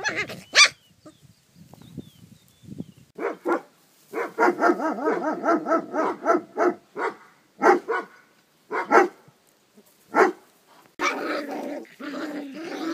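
Maremma sheepdog puppies barking in high-pitched yaps: a quick run of barks a few seconds in, then single barks about a second apart, and wavering cries near the end.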